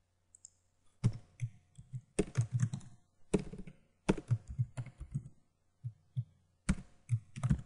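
Typing on a computer keyboard in quick bursts of keystrokes, starting about a second in, with a brief pause about two-thirds of the way through.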